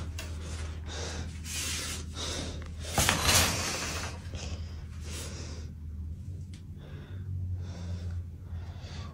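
A man breathing heavily close to a phone microphone, one noisy breath after another, over a steady low hum. There is a brief knock and a louder breath about three seconds in.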